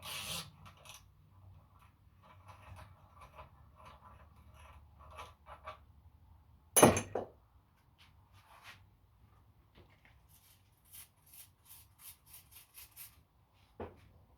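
Small metal tools and parts being handled on a workbench: scattered light clicks and clinks, one loud metallic knock about seven seconds in, and a short run of quick ticks later on.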